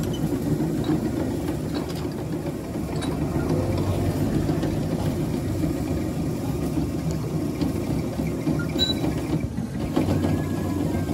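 Steady low hum of workshop machinery running, with a few faint clicks and a brief dip a little before the end.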